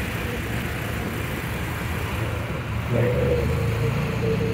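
Side-by-side UTV running along a gravel road with a steady engine rumble. About three seconds in it grows louder and a steady whine comes in as it picks up speed.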